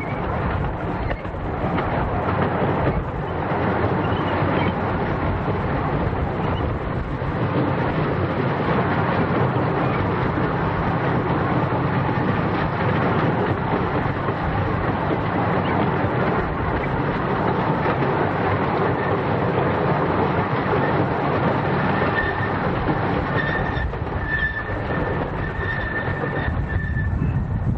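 A 15-inch gauge miniature railway train running steadily along the track. A thin, high wheel squeal comes in near the end.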